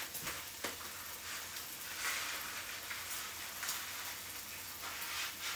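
Diced pancetta frying in a pan: a steady sizzle with a few faint pops.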